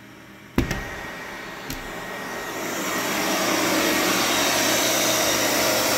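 Vacuum cleaner running inside a soundproofed cabinet as its sealed door is opened. A sharp snap about half a second in and a lighter click a second later come as the door clamps let go, then the vacuum's running noise grows from muffled to loud over about two seconds and holds steady with the door open.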